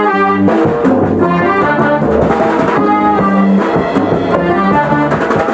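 Accordions playing a tune in full, sustained chords, the notes changing every fraction of a second.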